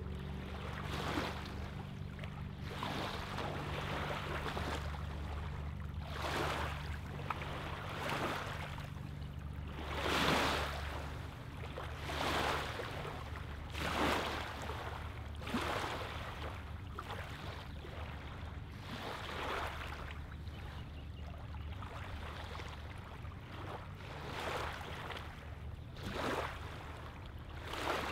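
Small waves lapping on a pebbly lake shoreline, a splashing wash arriving every second or two. A steady low hum runs underneath.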